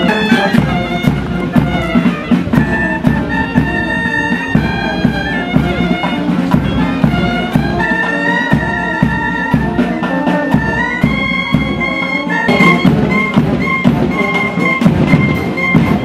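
Band music: a melody in held notes over a steady low drone, with regular drum beats throughout. It cuts off at the end.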